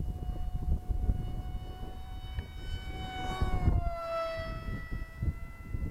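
Radio-controlled model MiG-35 jet flying past with a high, steady whine that swells and drops in pitch as it passes close overhead about halfway through. Wind buffets the microphone underneath.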